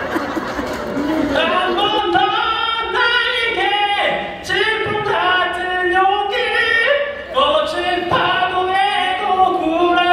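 A man singing solo into a handheld microphone through the hall's PA, without accompaniment, starting about a second in.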